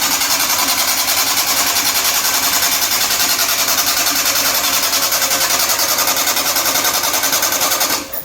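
A small machine running with a rapid, even clatter, which cuts off suddenly near the end.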